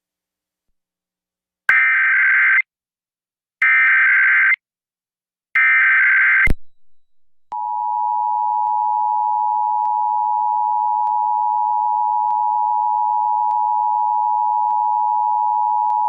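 Emergency Alert System SAME header: three one-second bursts of screeching digital data tones, about two seconds apart. About a second after the last burst, the EAS two-tone attention signal starts and holds steady.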